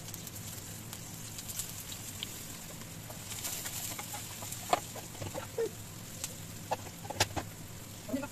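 Onions frying in hot oil in a nonstick pan, a steady sizzle, with a wooden spatula scraping and knocking against the pan a few times in the second half.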